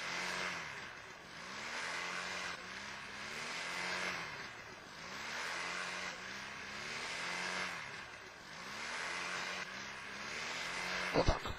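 Powered-paraglider trike's engine and propeller running on the ground, the throttle opened and eased off again and again so the pitch swells and falls about every two seconds. A few sharp, loud knocks come near the end.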